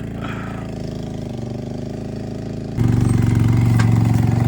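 Kawasaki Bayou ATV engine running steadily while hooked to a loaded boat trailer. About three seconds in it suddenly becomes much louder and keeps running at that level.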